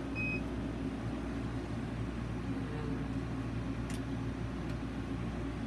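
Steady mechanical hum of a switched-on CO2 laser cutter and its running support equipment, with a short beep just after the start and a faint click about four seconds in.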